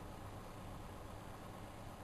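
Whirlpool washing machine mid-wash, quiet between drum turns: a faint steady hum and hiss.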